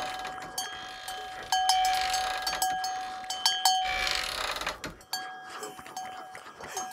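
A small alarm bell ringing, shaken in a quick run of strikes as its tied string is pulled, loudest through the middle, with a softer second run near the end. The ringing signals that the combine harvester the string is tied to has started moving in the night.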